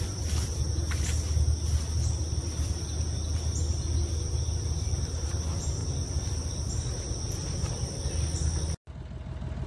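Steady high-pitched drone of insects over a constant low rumble, with a few faint clicks. It cuts off abruptly about nine seconds in and a quieter hum takes over.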